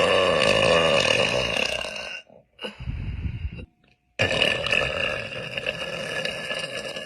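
A woman burping: a long, deep burp, then a short low one, then another long burp, each cut off abruptly.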